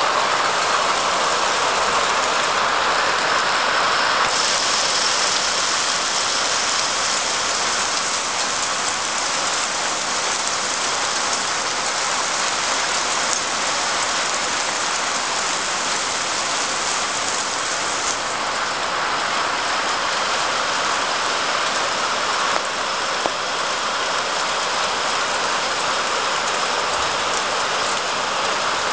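Heavy rain falling steadily onto flat roofs: a dense, even hiss with no breaks.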